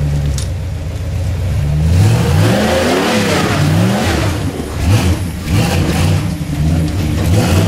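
Rock buggy engine running steadily, then revved up and down over and over from about two seconds in as the throttle is worked to crawl the buggy up a rock ledge.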